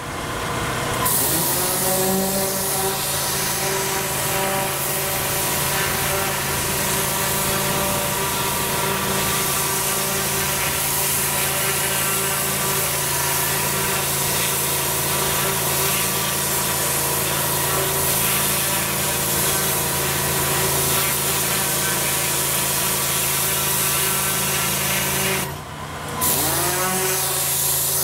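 Petrol pressure washer running under load, its high-pressure jet from a twin-headed turbo lance blasting moss and grime off block paving. The spray cuts out briefly about 25 seconds in, then resumes as the machine's note dips and climbs back to a steady pitch.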